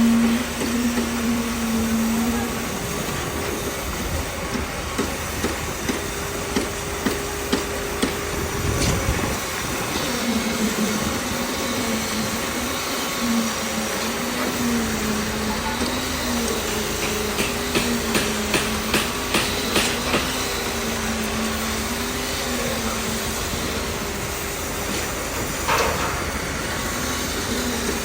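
Machinery running at a concrete slab pour: a steady motor hum that wavers slowly in pitch, with sharp knocks and clanks of tools on the job, including a quick run of about three knocks a second roughly two thirds of the way through.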